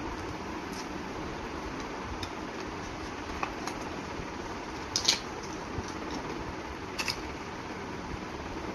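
Hands handling a smartphone's cardboard retail box and its packed charger: a few short clicks and taps of cardboard and plastic, in pairs about five and seven seconds in, the one near five seconds loudest, over steady background noise.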